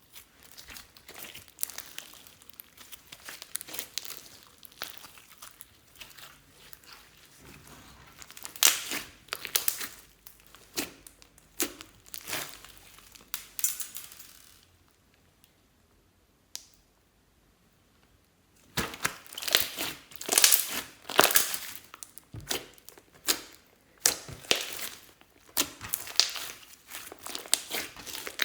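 Slime being squeezed and stretched by hand: irregular sticky clicks, pops and crackles, stopping for a few seconds past the middle, then coming back denser and louder.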